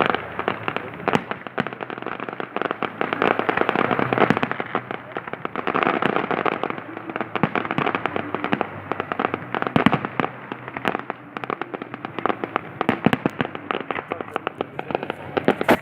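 A fireworks display going off: a dense, continuous run of crackles and pops from bursting shells, with clusters of louder bangs.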